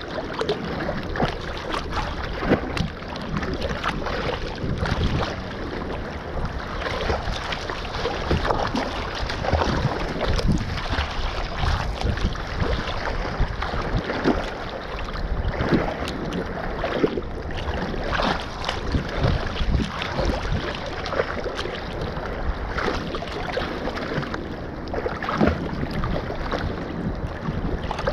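Choppy sea water sloshing and splashing right at the microphone, which sits at the waterline, with wind buffeting the microphone; irregular small splashes all the way through.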